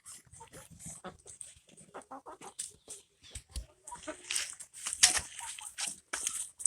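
A flock of chickens clucking, mixed with many short, sharp clicks and scratches that grow busier and louder over the second half.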